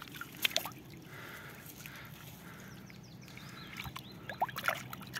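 Shallow water sloshing and dripping around a carp sling as a carp in it is lowered into the lake for release, with a few sharp splashes about half a second in and again near the end.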